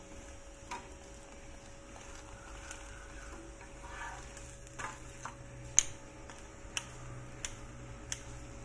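Metal spatula tapping and scraping on a tawa as a roti is pressed and turned, giving a handful of sharp clicks, the loudest near the middle, over a faint sizzle of frying.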